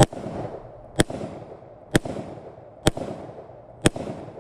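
Five gunshots fired at a steady pace of about one a second, each a sharp crack followed by a short echo.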